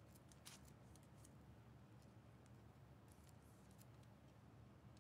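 Near silence: a steady low room hum with a scatter of faint, short clicks from trading cards being handled and flipped through, the clearest about half a second in.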